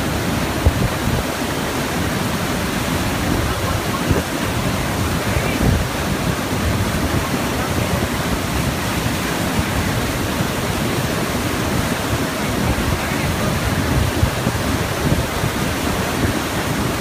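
Steady rushing of water through a small hydroelectric turbine, a constant noise with a heavy low rumble.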